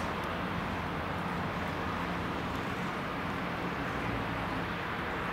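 British Rail class 158 diesel multiple unit's underfloor diesel engines running with a steady low drone as the train pulls away.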